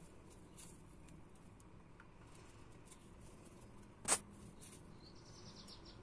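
Caged budgerigars making small sounds: faint scattered ticks, one short, sharp, loud sound about four seconds in, then a brief high, rapid chattering trill near the end.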